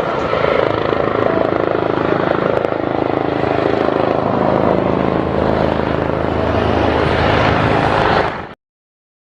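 Helicopter running, its turbine and rotor making a steady, loud drone that cuts off suddenly near the end.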